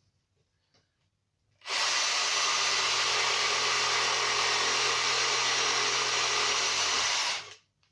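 An electric power tool motor starts about two seconds in, runs steadily at full speed with an even whine for about five and a half seconds, then switches off near the end.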